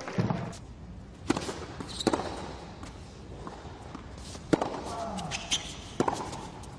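Tennis ball struck by racquets and bouncing on a hard court during a baseline rally: a series of sharp pops spaced a second or so apart.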